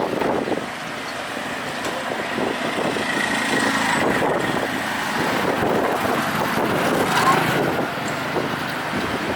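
Street traffic: a motor vehicle's engine running close by over a steady wash of road noise, growing louder and loudest about seven seconds in.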